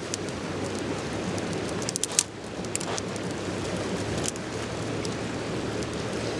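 Dry-branch campfire crackling with scattered sharp pops, the loudest a snap about two seconds in, over the steady rushing of a river.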